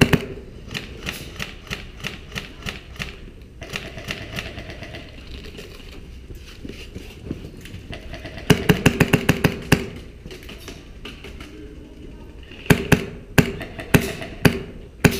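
Airsoft rifle shots: a steady string at about three a second, a rapid burst about eight and a half seconds in, and several single shots near the end.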